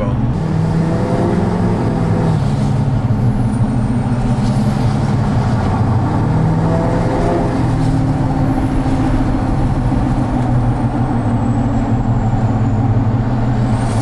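Tuned and deleted L5P Duramax turbo-diesel V8 in a 2020 Chevrolet Silverado High Country pulling hard through a 5-inch straight-pipe exhaust, heard from inside the cab. Over the deep engine drone, the stock turbo, with aftermarket intake piping, gives a high whistle that falls and climbs again, then slowly sinks near the end.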